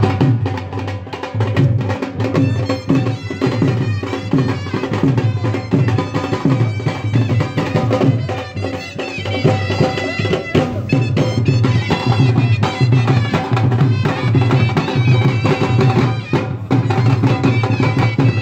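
Traditional folk music: dhol drums beating a steady rhythm under a melody of sustained notes.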